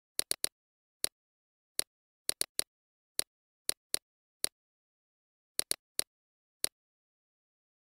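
Computer mouse clicks, about sixteen sharp identical clicks at irregular intervals, several in quick doubles and triples like double-clicks, with dead silence between them.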